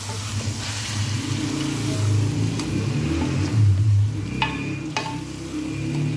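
Chicken karahi sizzling in an aluminium karahi as freshly added stock hits the hot oil, stirred with a spatula that knocks against the pan three times with a short metallic ring. A low rumble runs underneath.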